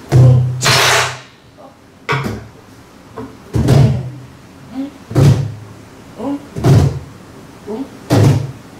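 Korean buk (pansori barrel drum) played slowly in jinyangjo rhythm, with a stroke about every second and a half. The wooden stick gives sharp cracks and the palm gives deep booming strokes on the drumhead.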